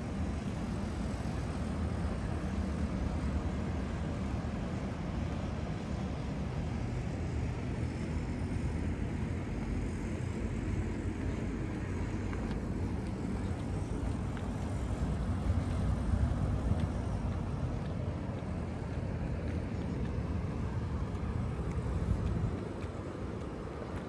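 Steady low rumble of outdoor background noise, easing off slightly near the end.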